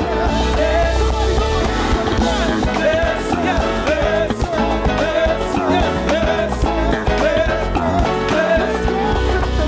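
A live band plays a song while a choir sings, with steady bass and sung voices carrying the melody throughout.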